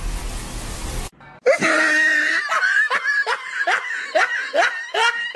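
A second of steady hiss that cuts off, then laughter: a run of short, rising laughs, about two a second.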